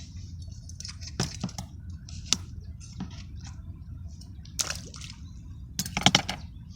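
Wet splashing and squishing sounds broken by a series of short sharp clicks and knocks, the loudest cluster near the end.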